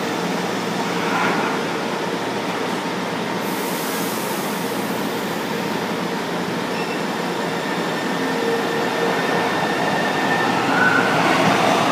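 São Paulo Metro train at a platform: the doors close with a short hiss of air a few seconds in, then the train pulls away, its traction motors giving a rising whine that climbs through the last few seconds.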